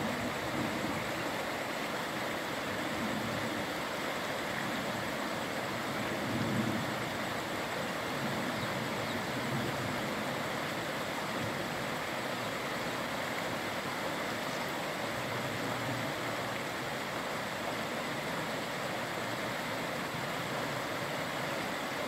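Chalakudy River water rushing steadily over rocky rapids, a constant wash with no breaks.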